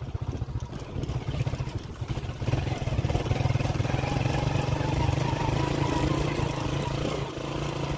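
Motorcycle engine running while being ridden at low speed. The note is uneven for the first couple of seconds, then steadies and grows a little louder, with a brief dip near the end.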